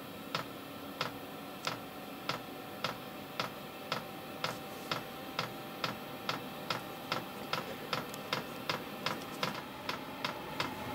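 Fuel dosing pump of a portable diesel air heater clicking steadily during start-up, from about two clicks a second speeding up to about three a second, as it begins to meter diesel to the burner. Underneath runs the steady hum of the heater's blower fan.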